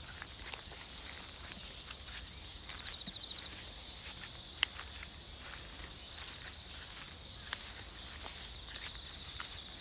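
Insects chirping and trilling in high-pitched pulses, with a thin steady high whine above them, while footsteps crunch along a rice paddy path; one sharp footstep click stands out near the middle.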